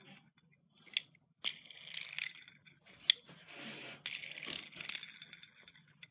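Home-built Lego-brick fidget spinner flicked and spun by hand: plastic pieces clicking and rattling in several short bursts, each set off by a sharp click, with brief pauses between.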